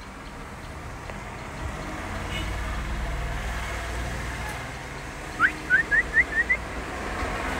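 A low steady rumble of a motor vehicle, with a quick run of six short rising chirps about five and a half seconds in.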